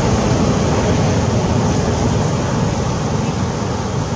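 Steady rushing background noise with a fluttering low rumble, with no distinct calls or knocks.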